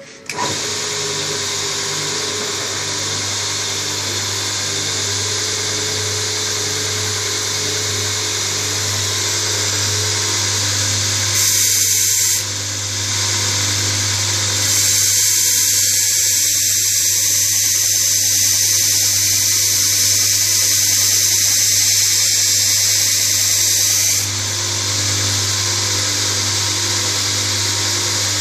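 Homemade belt grinder switching on and running steadily with a hum. About 11 seconds in, briefly, and again for about ten seconds from around 15 seconds in, a louder high hissing grind as work is pressed against the belt.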